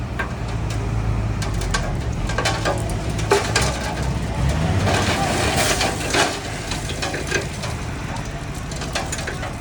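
A heavy construction vehicle's diesel engine running low while loose rock and soil crunch and clatter. The crackling is densest about five to six seconds in.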